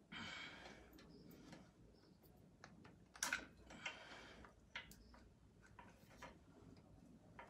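Faint scattered clicks and small taps as tight wire connectors are worked off the run capacitor in a floor sander's capacitor box, with a couple of short hissing rustles.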